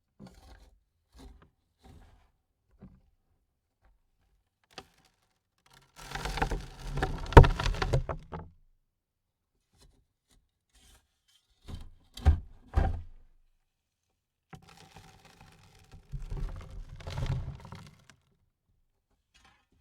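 Dirt falling onto a coffin lid. A few scattered grains tick at first. About six seconds in, a heavy load of soil lands with a thud and a spread of pattering. A few separate clods thump around twelve seconds in, and another longer spill of soil patters on the lid near the end.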